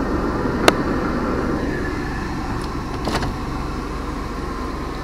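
Car engine and road noise heard from inside the cabin while driving slowly, gradually getting quieter. A sharp click comes about two-thirds of a second in, and a fainter tap about three seconds in.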